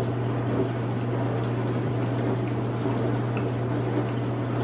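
Washing machine running: a steady hum with water noise, too loud.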